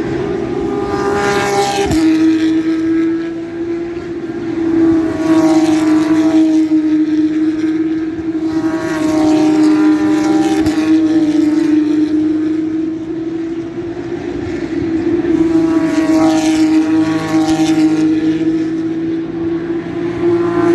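Formula 1 cars passing one after another at speed, about five passes a few seconds apart, each a high engine whine that drops in pitch as the car goes by, over a steady engine drone.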